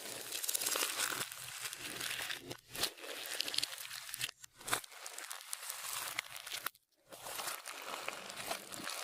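Clear slime being squished and worked by hand, a dense run of small wet clicks and pops, with a brief pause about seven seconds in.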